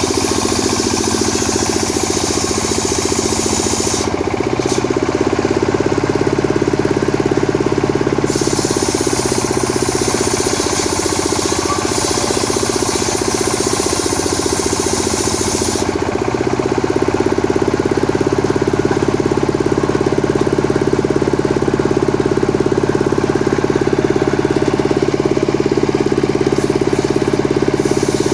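Stihl MS 382 two-stroke chainsaw running steadily while sawing old coconut palm wood into blocks. A high hiss drops away a few seconds in, comes back, and drops away again about halfway through.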